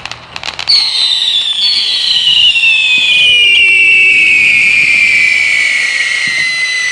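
Whistling fireworks fountain firing: a brief crackle, then under a second in a loud, piercing whistle starts and slowly falls in pitch. A second whistle joins it shortly after.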